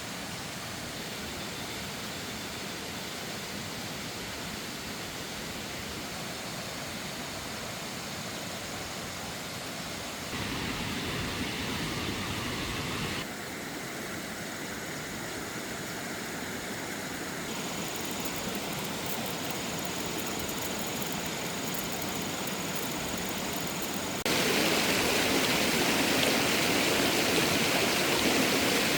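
Steady rushing of flowing water, heard across several cut-together shots: the sound changes abruptly about ten seconds in and again a few times after, and is louder over the last few seconds.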